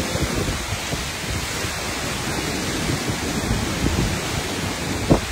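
Hurricane wind and rain in a steady rush, with wind buffeting the phone's microphone. A short thump sounds near the end.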